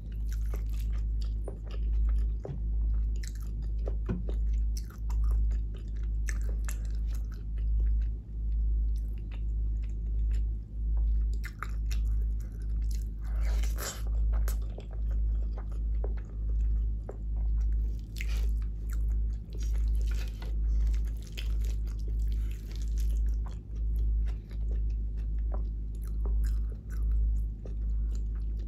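Close-miked chewing of a mouthful of vegetable biryani, in a steady rhythm of about one chew a second, with wet mouth clicks and crackles over it. About halfway through comes a louder, longer burst as a fresh handful of rice is bitten.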